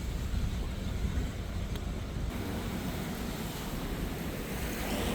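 Steady outdoor street noise: wind rumbling on the microphone over a background of passing traffic.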